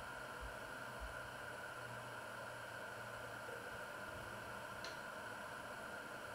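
Steady faint hiss with a low hum, and a single short tick about five seconds in.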